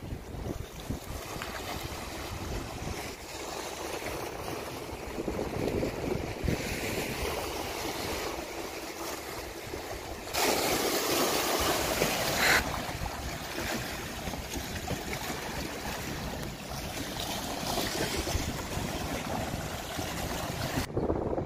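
Small sea waves lapping and splashing among the boulders of a rock breakwater, with wind buffeting the microphone. A louder wash of water comes about ten seconds in and lasts about two seconds.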